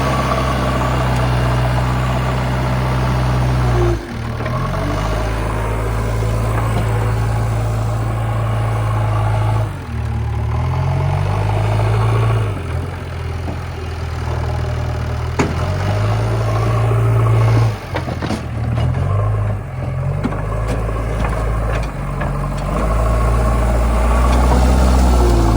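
Heavy diesel engine of working machinery running steadily, its speed shifting down and back up every few seconds as the load changes, with a sharp knock about two thirds of the way in.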